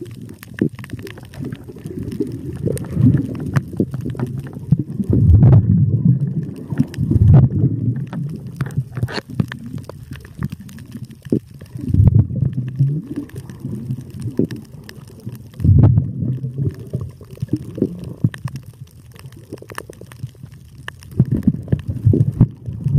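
Muffled underwater gurgling and sloshing of water around the diver, with irregular low surges and scattered sharp clicks and knocks as a gloved hand works at an abalone stuck fast to the coral.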